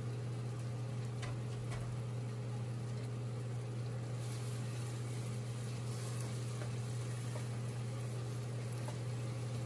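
Chicken curry sizzling in a pot as a wooden spoon stirs it, the hiss growing louder about four seconds in, over a steady mechanical hum.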